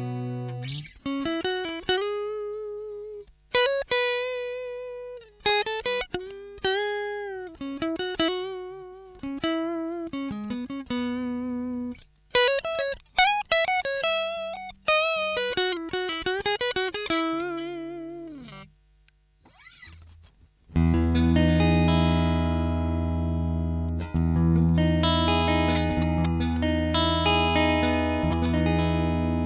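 Vintage V6 24 electric guitar with twin Wilkinson humbuckers played through an amp. Single-note lead lines with bends and vibrato come first, then a brief pause about two-thirds of the way through, then sustained chords.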